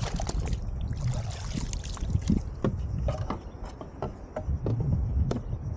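Water splashing and trickling around a kayak, with scattered short knocks and clicks over a steady low rumble.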